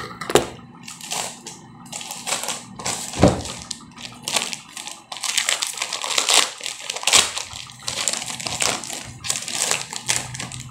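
Plastic wrapping around a pack of bar soap crinkling and tearing as it is handled and pulled open by hand, with a sharp knock just after the start and another about three seconds in.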